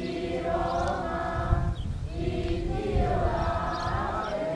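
A group of young voices singing together in unison, in long held phrases with short breaks between them.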